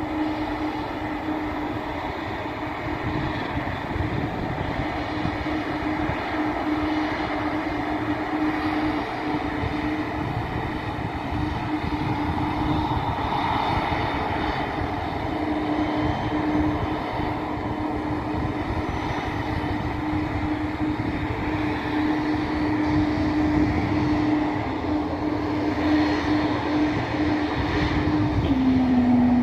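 Embraer E2 airliner's Pratt & Whitney geared turbofan engines giving their whale-like moan: a steady hum held on one pitch over engine noise, dipping slightly in pitch near the end as the sound grows louder.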